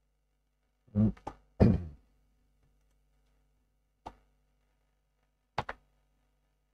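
Two louder short thumps about a second in, then a few sharp clicks, a double click near the end, typical of mouse clicks and handling near a desk microphone, over a faint steady electrical hum.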